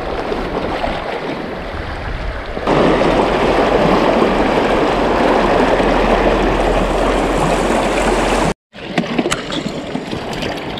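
Steady rush of river water that grows louder about three seconds in. Near the end it breaks off for an instant, then comes back quieter with a few light clicks.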